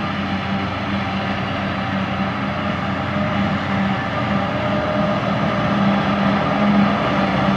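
Claas Jaguar 890 forage harvester running under load, chopping grass and blowing it through its spout into a trailer, with a tractor driving alongside. It is a steady drone with a constant hum, growing slightly louder toward the end as the machines come closer.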